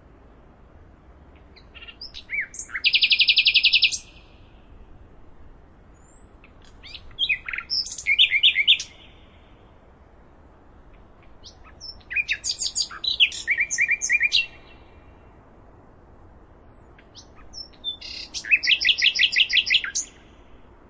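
A songbird singing four short song phrases, roughly every five seconds, each made of rapid repeated high chirping notes that run into a fast trill. A faint steady hiss lies underneath.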